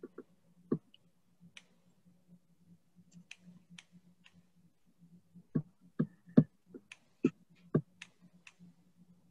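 Irregular light clicks and taps, a dozen or more, coming more often after the middle, over a faint steady electrical hum.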